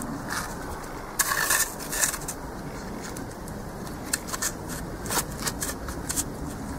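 Wooden poles knocking and scraping against each other as they are fitted into cord loops, with light rustling: a scatter of short clicks and scuffs, busiest about a second in and again around four to five seconds in.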